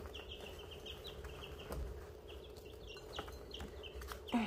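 Baby chicks about two and a half weeks old peeping steadily: a running string of short, high, slightly falling peeps, with a few faint clicks among them.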